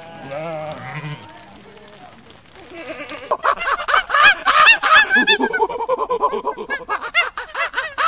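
A sheep bleats briefly. About three seconds in, it gives way to a fast run of loud, high, repeated chattering calls from monkeys.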